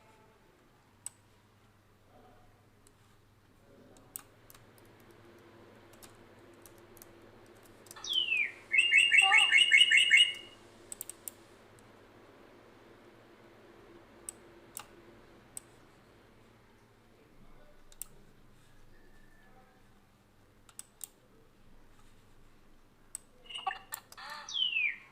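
Bird-call sound effect played back twice, about 8 seconds in and again near the end: each time a quick downward-sweeping whistle leads into a fast buzzy trill lasting about two seconds. Scattered sharp clicks come between the calls.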